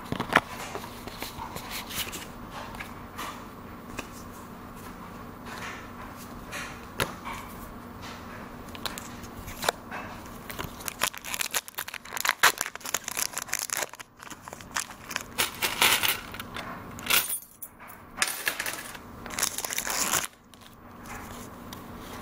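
Trading cards handled and shuffled with scattered soft clicks, then from about eleven seconds in a foil booster-pack wrapper being torn open and crinkled in a dense run of crackles.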